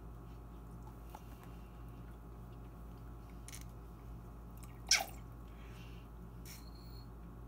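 Faint puffs and short wet sputters of breath forced through a hole in a raw eggshell as the egg's contents are blown out into a glass jar, the loudest sputter about five seconds in, over a steady low hum.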